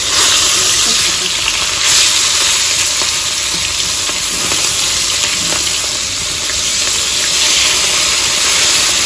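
Two whole sarputi (olive barb) fish sizzling steadily as they shallow-fry in hot oil in a steel wok, with a metal spatula scraping against the pan as the fish are turned, loudest about two seconds in.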